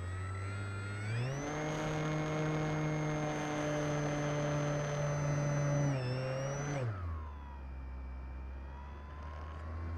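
Scale RC P-51 Mustang's motor and propeller heard from on board the plane, running steadily at low throttle. About a second in the pitch rises sharply as the throttle is opened, holds high and steady, then drops back to the lower pitch about seven seconds in.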